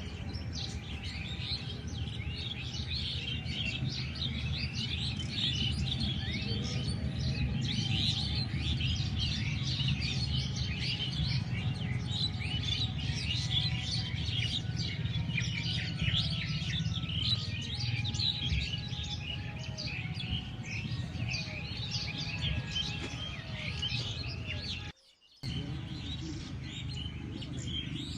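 Many birds chirping and twittering densely over a steady low rumble. The sound cuts out suddenly for about half a second near the end, then resumes.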